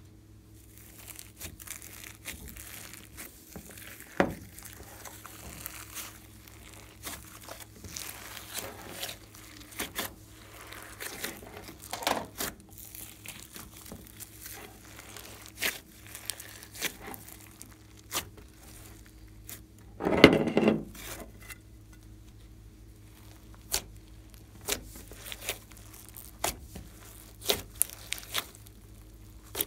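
Hands squishing and kneading glossy slime mixed with clay, glitter and foam beads, giving many sharp sticky clicks and crackling pops. One louder, longer squelch comes about two-thirds of the way through.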